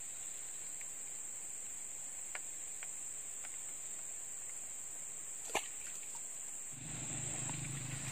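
Steady high-pitched drone of insects in the grass, with a few faint ticks and a sharper click about five and a half seconds in. Near the end a low rustling rumble comes in under it.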